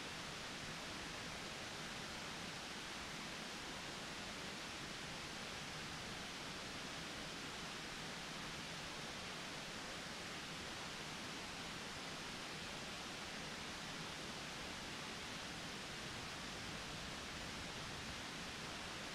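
Steady, even background hiss with no distinct sounds in it.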